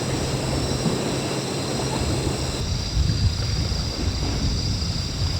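Strong seaside wind buffeting the microphone over the wash of surf, gusting harder in the second half. A low steady hum runs underneath and stops about halfway through.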